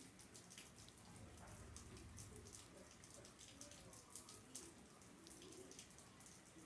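Light rain falling and dripping, faint, with many small ticks of drops over a soft steady hiss.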